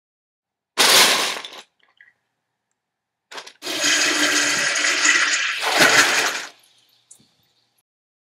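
Edited-in disaster sound effects: a sudden crash about a second in that dies away quickly, then a longer rushing noise with a second crash near the end of it.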